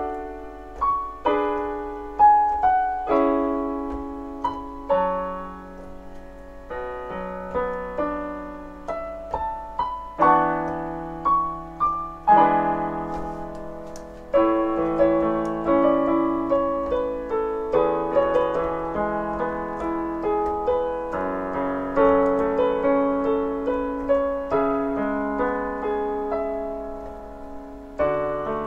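Solo piano played on a digital piano: a melody over held chords, each note struck and fading away.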